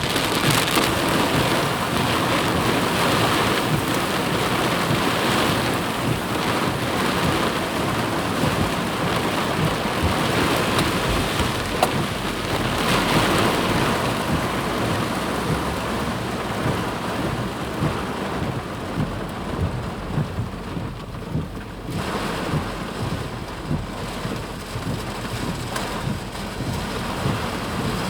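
Flash-flood water rushing in a wadi: a continuous loud wash of water noise with a low rumble underneath, a little quieter in the last third.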